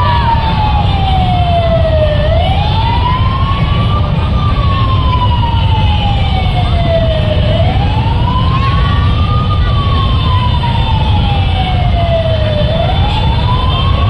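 A wailing siren that rises quickly and falls slowly, repeating about every five seconds, over a steady low rumble of crowd and engine noise.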